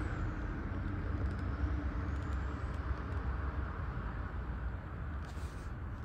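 Steady low rumble of motor traffic, swelling and easing slightly as vehicles pass.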